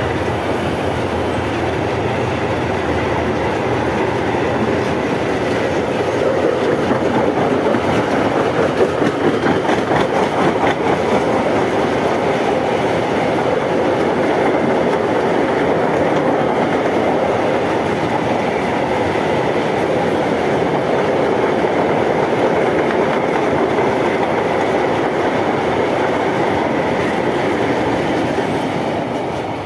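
A long freight train of hooded wagons rolling past close by: a steady rumble with rapid clickety-clack of wheels over the rail joints. It fades near the end as the last car passes.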